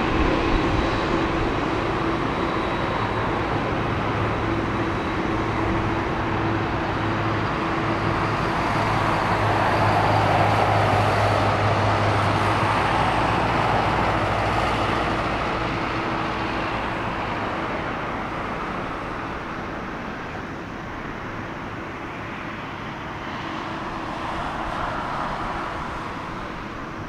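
Jet engines of a Boeing 767-300BCF freighter at taxi power: a steady jet rumble with a low hum that swells to its loudest about ten to fourteen seconds in, then fades as the aircraft taxis away.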